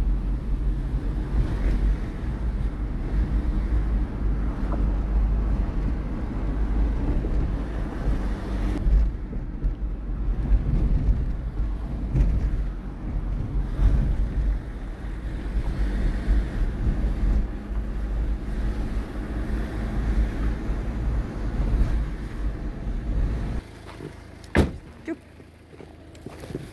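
Car cabin noise while driving: a steady low rumble of engine and road. It drops away near the end, followed by a single sharp click.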